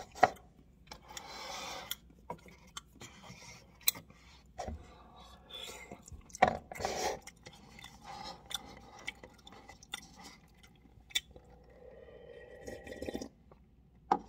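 A person chewing instant noodles, with scattered small clicks and short rustling scrapes from a paper noodle cup being handled.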